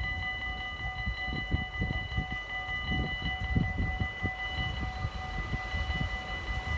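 Dutch level-crossing warning bells ringing with a rapid, even pulse: the crossing is closed for an approaching train.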